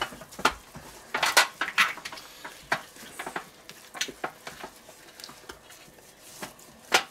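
Gloved hands rubbing oil into a raw whole duck and turning it in a stainless steel tray: scattered short wet squelches and knocks of the bird against the metal tray.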